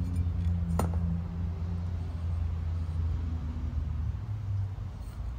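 A steady low engine-like rumble, as of a vehicle running nearby, easing off near the end. A single sharp click sounds about a second in.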